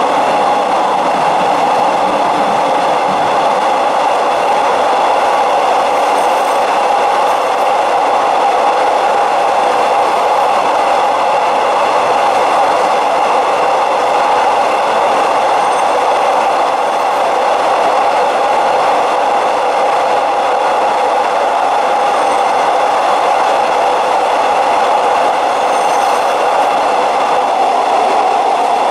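A passenger train running along the track, heard from aboard: steady, even running noise with no change in level.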